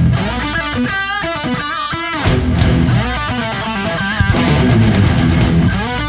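Background rock music led by electric guitar over a bass line.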